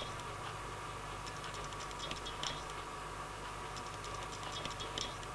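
Faint small clicks and mouth sounds of a man sipping beer from a pint glass, over a steady electrical hum of room tone.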